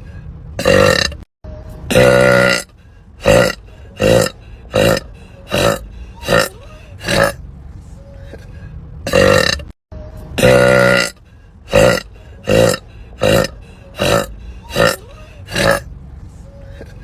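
A woman burping over and over: a quick string of short burps with a few longer, drawn-out ones, the run repeating about every eight seconds.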